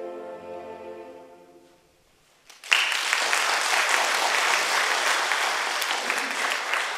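The last note of a classical aria with piano fades away, and after a brief hush an audience breaks into sustained applause about two and a half seconds in.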